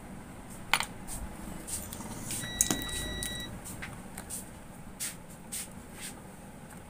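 A single electronic beep, one steady tone held for about a second a little under halfway through, among scattered sharp clicks and light rattles of a wire and tools being handled.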